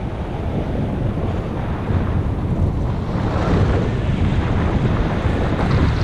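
Flight wind buffeting the microphone of a GoPro HERO5 Black on a paraglider in flight: a loud, steady rumbling rush that swells from about halfway through.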